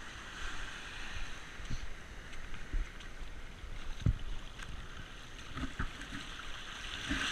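Seawater sloshing and splashing around a diver floating at the surface, a steady hiss with a few low thumps, the strongest about four seconds in.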